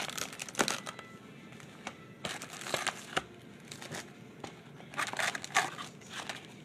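Foil-wrapped Topps Chrome trading card packs crinkling and rustling in gloved hands as they are pulled from the hobby box and stacked. The crinkling comes in bursts: about half a second in, around two to three seconds in, and around five seconds in.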